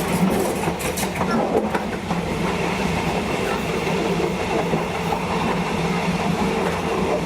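Diesel-hauled passenger train running, heard from on board: a steady rumble of wheels on rail, with a few sharp clicks of wheels over rail joints in the first couple of seconds.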